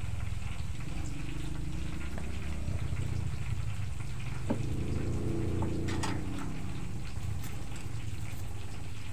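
Steady low rumble of a wood fire under a pot of boiling water, with a couple of sharp knocks around the middle as cookware at the stove is handled.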